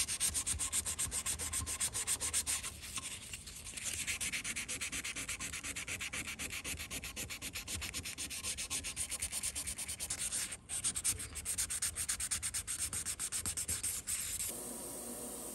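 Fine 800-grit sandpaper rubbed by hand in rapid short strokes over a bare-metal die-cast car body, a dry scratchy hiss. The rubbing breaks off briefly about two-thirds in and stops shortly before the end.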